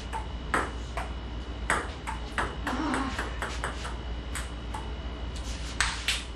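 Table tennis ball clicking sharply off paddles and the table during a rally, a quick irregular series of ticks. Around the middle there is a short run of closely spaced bounces as the ball settles near the floor and is picked up.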